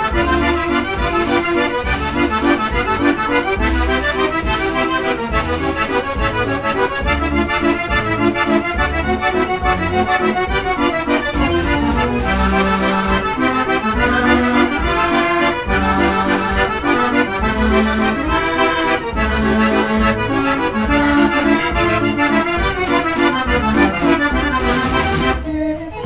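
92-key Mortier dance organ, the 'Jeanneke Mortier', playing a waltz, heard from a mono LP. The melody is carried on accordion-like reeds and pipes over a regular bass beat, with a brief break just before the end.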